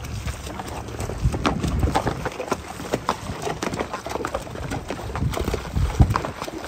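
Horses' hooves walking through a shallow, stony creek: irregular clopping on rocks mixed with splashing in the water.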